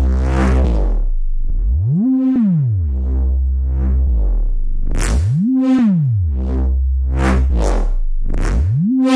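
A synthesized neuro drum-and-bass bass patch, made in the Phase Plant software synthesizer, looping a phrase. A tone swoops up in pitch and back down about every three and a half seconds over a deep held sub bass. In the second half it breaks into quick stuttering growls.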